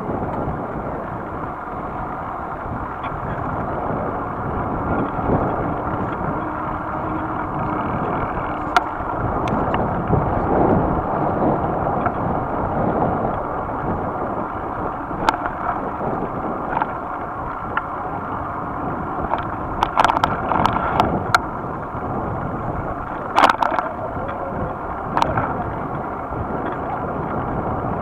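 Steady rushing wind and rolling noise picked up by a camera mounted on a moving bicycle, with a few sharp knocks now and then, in a small cluster about two-thirds of the way through, as the bike jolts along the road.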